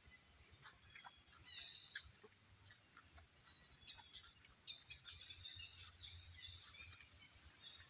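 Faint bird chirps and short trills in a quiet forest setting, in a few clusters, with scattered light clicks and a steady high hiss underneath.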